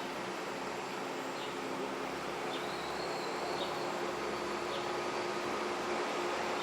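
Steady background noise with a faint low hum, and faint short high chirps about once a second.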